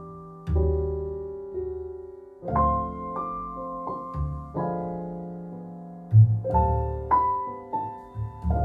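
Piano music: chords and notes struck one after another every half second to a second and a half, each ringing and fading before the next.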